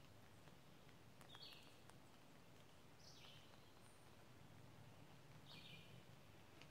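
Faint birdsong: a songbird repeats a short, high phrase that drops in pitch, three times about two seconds apart, over a quiet background hush.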